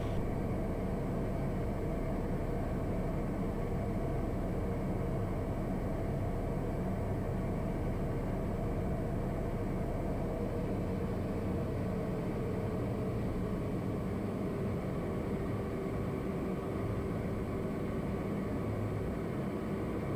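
Steady cockpit noise of a Piper Meridian's single Pratt & Whitney PT6A turboprop engine, propeller and airflow on final approach with gear and full flaps down. A faint hum in it dips slightly in pitch near the end.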